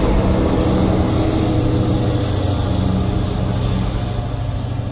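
Propeller airplane engine sound effect, a steady drone that begins to fade near the end.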